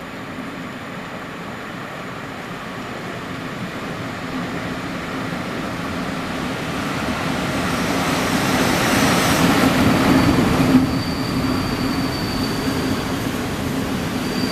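EP07 electric locomotive hauling a train of passenger coaches into the station. Its running noise and a steady low hum grow louder and peak as the locomotive passes, about ten seconds in. The coaches then roll by with a thin high squeal.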